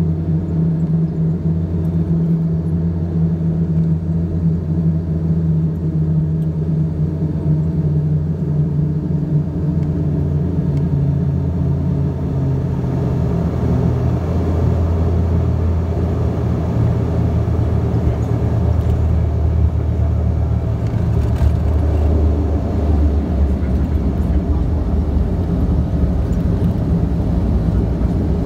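Cabin noise of an Embraer EMB 120 Brasilia's twin turboprop engines on short final: a steady propeller drone. About twelve seconds in, the drone gives way to a rougher rumble as the aircraft touches down, and the rumble grows louder during the rollout on the runway.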